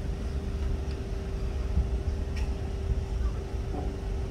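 A fast passenger ferry's engines running as it cruises past: a steady low rumble with a steady hum above it.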